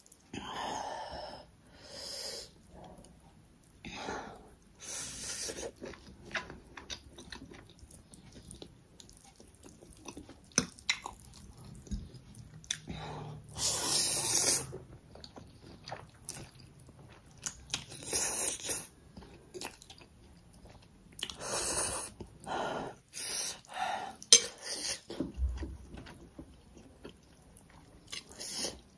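A person eating instant black bean noodles close to the microphone: short wet slurps and chewing every second or two, the loudest slurp about halfway through.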